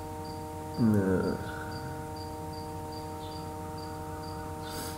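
A cricket chirping steadily, about two short high chirps a second, over a steady electrical hum. A brief voiced sound from the speaker comes about a second in.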